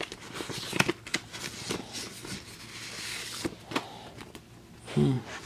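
Paper envelope being handled and opened and an old paper candy wrapper slid out: scattered crinkles and small clicks of paper, with a stretch of rustling a little past halfway.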